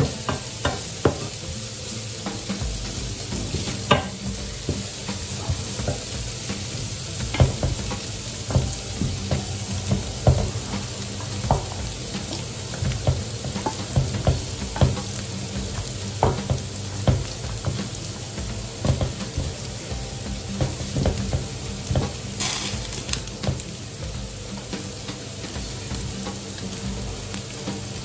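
Diced bacon sizzling steadily as it fries in a pan, with frequent knocks and scrapes of wooden utensils against the pans as it and the pasta are stirred. The sizzle swells briefly about 22 seconds in.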